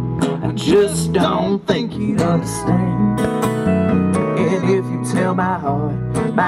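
Live country band playing: a strummed acoustic guitar over an electric bass line, with gliding notes from a steel guitar.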